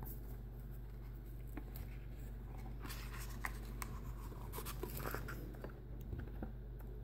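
Faint rustling and soft taps of a hardcover sketchbook being handled and opened, its paper pages brushing and turning, busiest in the middle.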